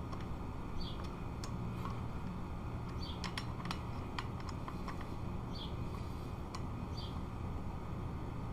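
Light, irregular metal clicks from a spoke wrench working the spoke nipples of a bicycle wheel as the spokes are tightened, with short high chirps every second or two over a steady low hum.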